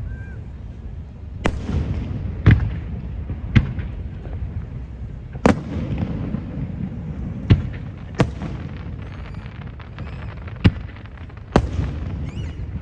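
Aerial fireworks shells bursting in the sky: about eight sharp bangs, one to two seconds apart, over a steady low rumble.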